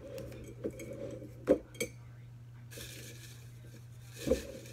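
A hand rummaging in a glass jar of folded paper slips: a few sharp clinks and knocks of fingers and slips against the glass, with paper rustling for a second or two before the last knock.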